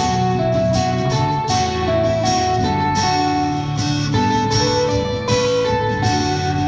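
Acoustic band playing live in an instrumental passage: guitar strummed in a steady rhythm under a held, stepping melody line.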